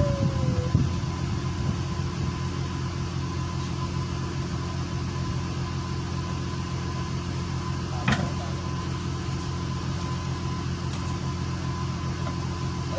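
Fishing boat's engine running with a steady drone. A single sharp knock comes a little past halfway.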